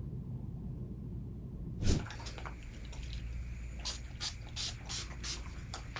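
Pump spray bottle spritzing mist over bedsheets: a quick run of short sprays, about four a second, starting about four seconds in. It is preceded by a low room hum and a single click just before two seconds in.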